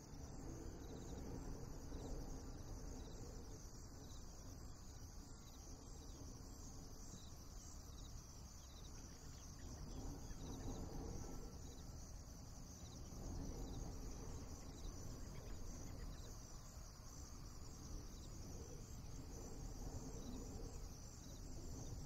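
Insects chirping in a steady high-pitched chorus with faint regular pulses, over a low even rumble.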